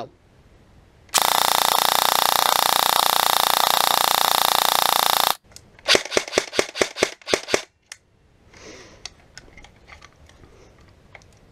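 Electric airsoft rifle (SRU Bullpup AR kit with a stock M4 motor) firing one long full-auto burst of about four seconds, with the motor and gearbox cycling very fast. It is followed by about ten quick separate shots and a few light handling clicks. The burst tests the motor's loose mounting screw, now wrapped in Teflon tape, which holds.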